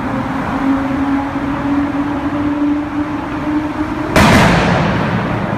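Nissan Skyline R33 exhaust with a steady engine note that rises slowly in pitch, then one loud bang about four seconds in as the exhaust backfires.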